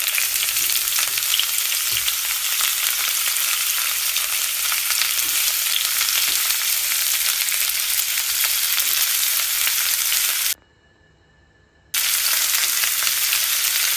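Breaded potato balls shallow-frying in hot oil in a pan: a steady sizzle that breaks off abruptly for about a second some ten seconds in, then resumes.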